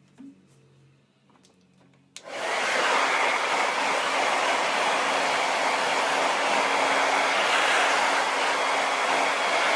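Hair dryer switched on about two seconds in, then blowing steadily with a faint hum.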